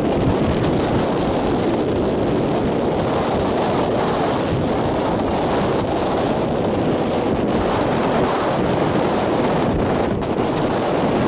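Wind blowing across the microphone: a steady, loud, rumbling buffet.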